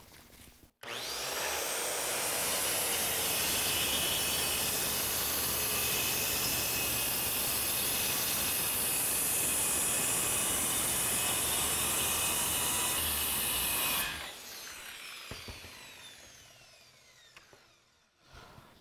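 Corded circular saw switched on about a second in and cutting steadily through a large sheet of sheet stock along a straight-edge guide. Near the end it is switched off and spins down, its pitch falling away over a few seconds.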